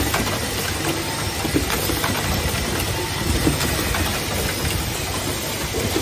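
Pneumatic automatic soft-close hinge assembly machine running: a steady mechanical hum with hiss and frequent light clicks.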